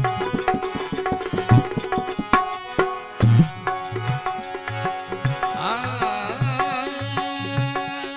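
Instrumental bhajan accompaniment: a steady rhythm of hand-drum strokes under a melody. Past the middle, a held lead melody with a wavering vibrato comes in over the drumming.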